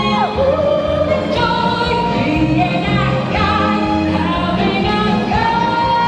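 Music with a woman singing, holding long notes that slide up into pitch.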